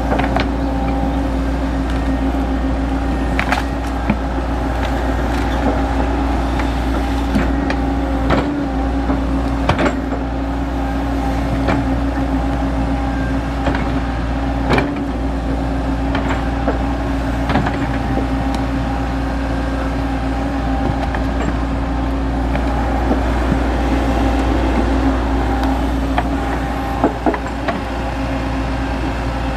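XCMG XE75G excavator's diesel engine running steadily under digging work, with scattered short knocks and clanks from the working machine.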